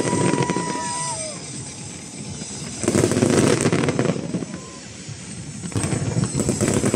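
Crackling fireworks popping and bursting in three dense waves of about a second each, with quieter crackle between. A high steady whistling tone runs over the first second.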